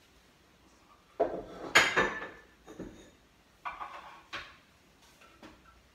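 Kitchenware knocking and clattering as things are rummaged out of a kitchen cupboard or drawer, where a wooden mortar and pestle is being fetched: about six separate knocks, the loudest about two seconds in.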